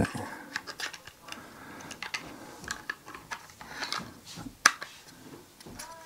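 Plastic battery cover and back plate of a battery-powered video doorbell being handled and fitted back on: small scrapes and rubs with light clicks, and one sharper click late on.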